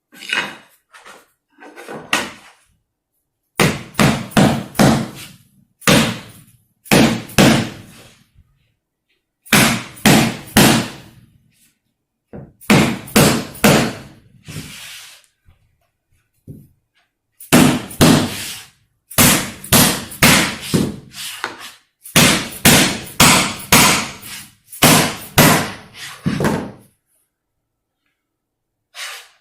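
A hammer striking a replacement maple floor plank to drive it into place, in quick runs of three to six blows with short pauses between. It stops near the end.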